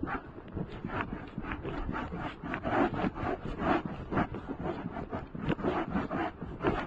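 Horse walking on a dirt forest trail: a steady run of muffled hoof steps, a few each second, mixed with rubbing and scraping noises.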